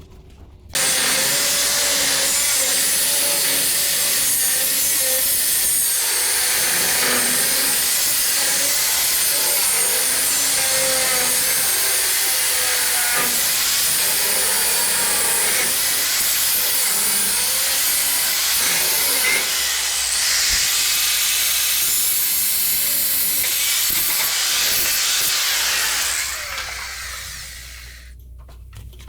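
A power tool running with a loud, harsh hiss for about 25 seconds, starting suddenly about a second in and winding down near the end.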